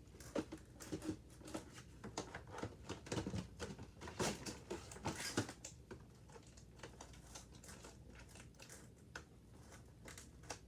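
Hands working at a boxed doll's plastic packaging and ties: a run of small clicks, taps and crinkles, busy in the first half and sparser later.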